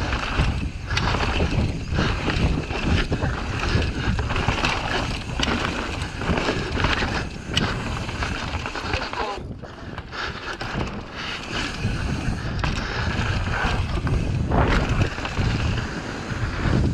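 Wind buffeting the camera microphone and mountain bike tyres rolling fast over a dirt trail, a steady rushing noise with a brief lull about ten seconds in.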